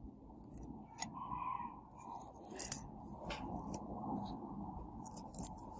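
Faint handling sounds as an iPhone 12 Pro Max back glass panel is lowered onto its frame: a few light clicks and scrapes of the panel against the metal rim.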